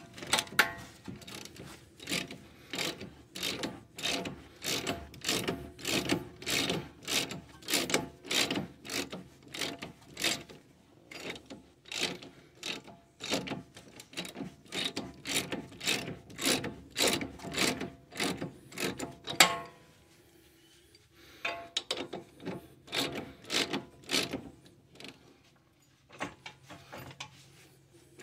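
Hand socket ratchet turning an 18 mm nut or bolt on a car's front suspension, its pawl clicking in quick back-and-forth strokes, stopping briefly twice.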